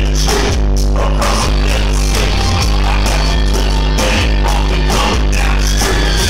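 Live rock band playing loud, with electric guitars, bass and a drum kit keeping a steady beat.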